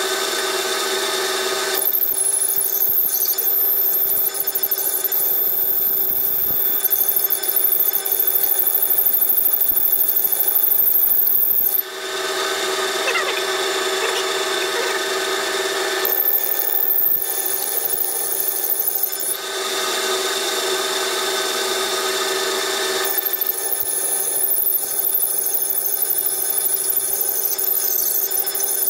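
Metal lathe running while a large drill bit, about 1 inch, bores into a spinning bar of 1144 steel: a steady motor whine, with three long stretches of high-pitched cutting noise and fast chatter while the bit is fed into the steel.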